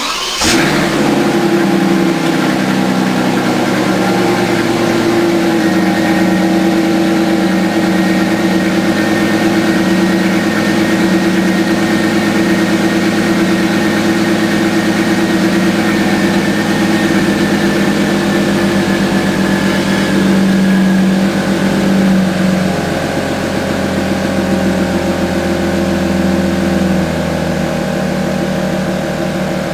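Volkswagen Touareg's W12 engine and exhaust firing up, then idling steadily. The idle note shifts slightly about twenty-two seconds in.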